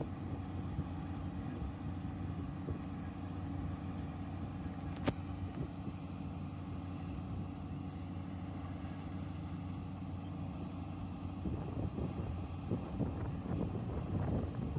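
Yanmar YH470 combine harvester running steadily with an even engine hum. A single sharp click about five seconds in.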